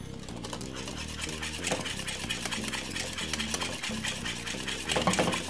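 Wire whisk beating cornmeal porridge in an aluminium saucepan: rapid scraping and clinking of the wires against the pan, with a louder flurry about five seconds in.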